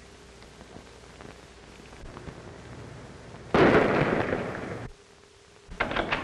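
A sudden loud blast about three and a half seconds in, a rush of noise that dies away over about a second and then cuts off abruptly: an explosion, heard over faint steady hiss.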